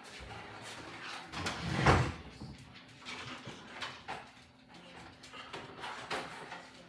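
Knocks and clatter of a door or cabinet being handled, one loud knock about two seconds in and a few lighter clicks and knocks after it, as the empty packaging is taken to the garbage.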